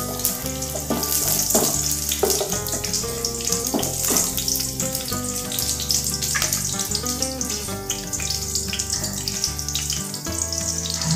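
Slit green chillies frying in hot oil in a kadai, a steady sizzling hiss, with background music and its low bass notes underneath.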